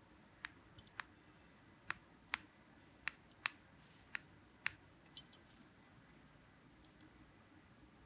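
Push buttons on a four-button key-fob remote control duplicator clicking as they are pressed, about ten sharp clicks in the first five seconds, often in pairs about half a second apart, with two faint clicks near the end.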